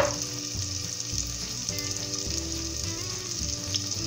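Chopped onion, garlic and ají paste sizzling steadily as they fry in oil in a clay pot.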